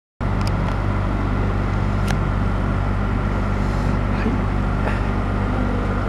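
Sanyo container refrigeration unit running steadily, its compressor and condenser fan giving a constant low hum with a thin steady higher tone, and a few faint clicks.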